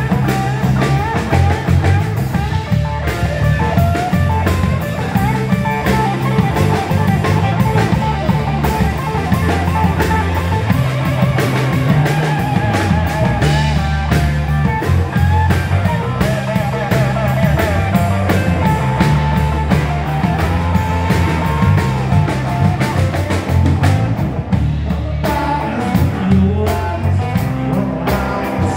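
Live rock band playing: guitar lines over a steady bass line and drum kit.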